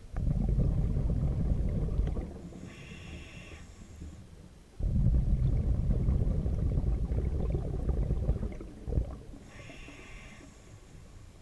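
Scuba diver breathing through a regulator underwater: two long exhalations of bubbles, a low rumbling gurgle of about two seconds and then about four seconds, each followed by a short hissing inhalation through the regulator.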